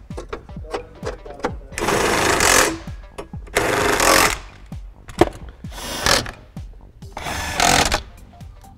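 Cordless drill/driver running in four short bursts, driving screws back into plastic dash panels, the first burst the longest. Background music with a steady beat underneath.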